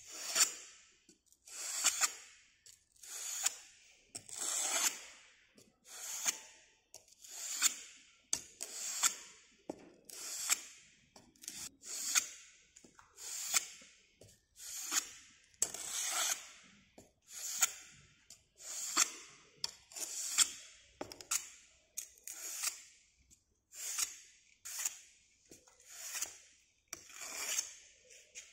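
Moulder's trowel scraping across rammed moulding sand to smooth and finish the mould surface: a steady series of rasping strokes, about one every second and a half, each swelling and then cutting off as the trowel is drawn and lifted.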